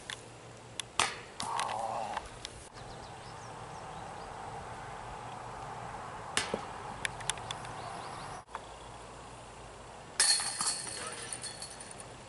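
Discs hitting the chains of a disc golf basket: sharp metallic clatters and jingling, three separate times, the loudest near the end with a brief ringing after it.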